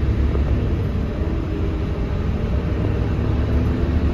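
Scania K230UB bus's rear-mounted five-cylinder diesel engine running steadily, a deep low drone heard from inside the passenger cabin.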